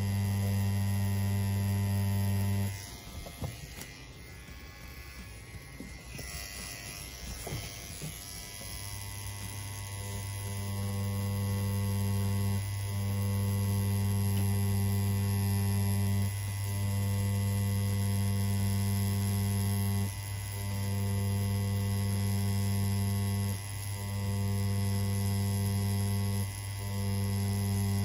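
CNC P6 rotary pen tattoo machine running at 7.5 volts during lining, a steady electric hum. It drops out about three seconds in for several seconds, then runs again with short breaks every three to four seconds as the needle is lifted between lines.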